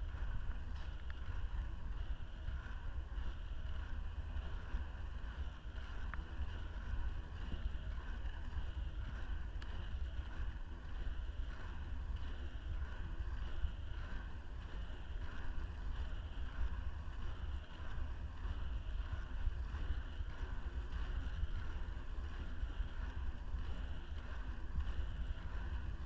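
Inline skate wheels rolling steadily on asphalt, a continuous road rumble mixed with wind buffeting the camera microphone.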